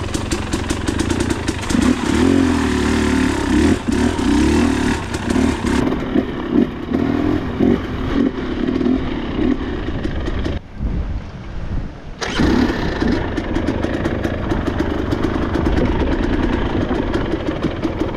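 Dirt bike engine running and revving. The sound drops away briefly about ten seconds in, then picks up again.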